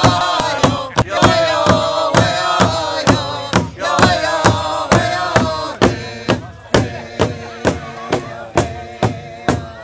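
A drum struck in a steady beat, about two strokes a second, with voices chanting a song over it; the singing drops lower about six seconds in while the drum keeps on.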